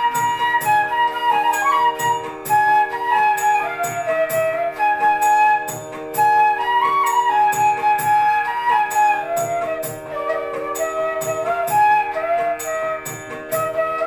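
Bansuri (side-blown bamboo flute) playing a melody with sliding notes, over a steady held drone and an evenly repeated percussion rhythm.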